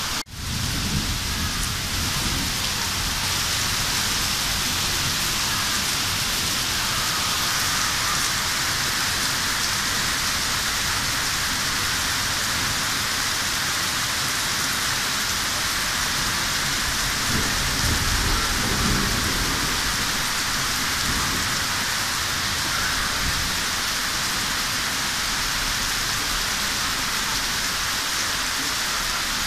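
Steady rain falling during a thunderstorm, with a low rumble of thunder swelling and fading a little past the middle. The sound cuts out for a moment right at the start.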